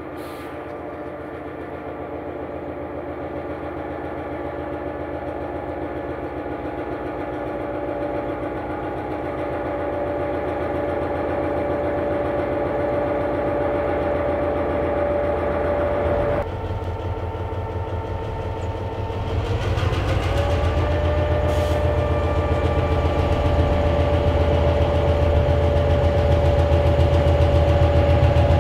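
EMD GP9 diesel locomotive's engine running at low throttle as the train crawls past, growing steadily louder as it nears. About two-thirds of the way in the sound changes abruptly, then a diesel locomotive engine's pitch rises as it throttles up and holds at the higher note.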